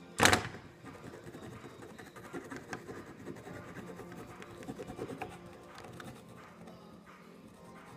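Scratchy rubbing and scraping of paint being worked onto a plastic Nerf blaster, preceded by one short, loud burst just after the start.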